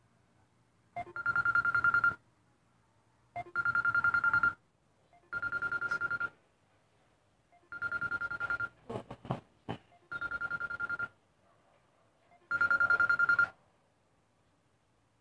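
Samsung smartphone alarm ringing: six bursts of rapid high-pitched beeping, each about a second long and about two seconds apart.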